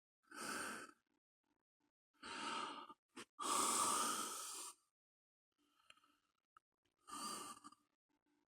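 A person breathing audibly close to the microphone: four sighing breaths, the longest and loudest about three and a half seconds in, with a short click just before it.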